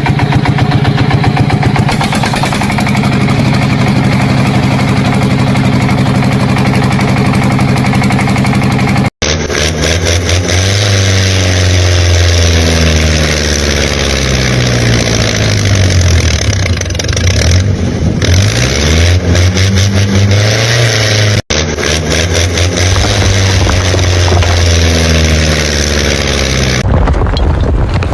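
An engine running loud and steady, then its pitch rising and falling as it revs in the middle stretch. It breaks off abruptly twice, about 9 and 21 seconds in.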